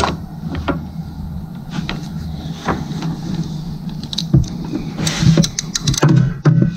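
Hand tools (pliers and a ratchet extension) clicking, knocking and scraping against metal engine parts as a sensor is worked into place, over a steady low hum. The clatter is busiest about four to six seconds in.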